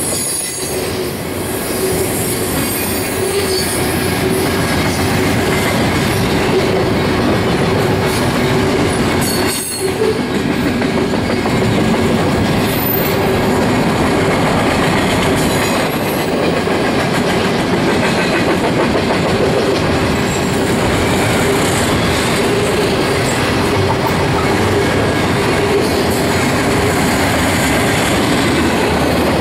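Double-stack intermodal container train's well cars rolling past: loud, steady rumble of steel wheels on rail, with a steady tone running through it and a brief dip about ten seconds in.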